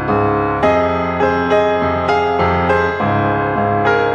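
Background piano music: a steady, unhurried run of single struck notes and chords.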